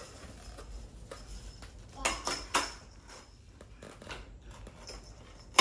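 A few light taps and clicks of small hard objects, the loudest two about two seconds in and half a second apart, over quiet room background.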